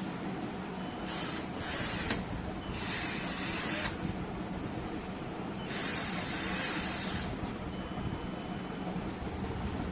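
12 V cordless drill motor running steadily. Three bursts of harsh hissing noise come in about a second in, around three seconds in and around six seconds in.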